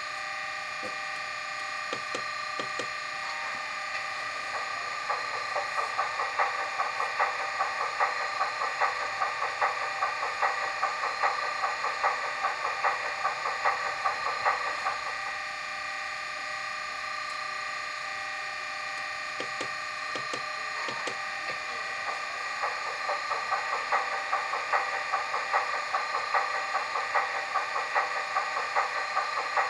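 Sound-fitted model locomotive playing its engine sound through a small speaker: a steady pitched engine note with no deep bass. A rhythmic beat builds over it for stretches, eases off for a while, then returns near the end.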